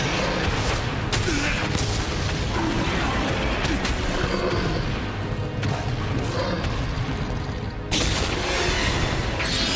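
Giant-hero battle soundtrack: music under dense effects noise, with repeated heavy impact hits and booms and a sudden loud hit about eight seconds in.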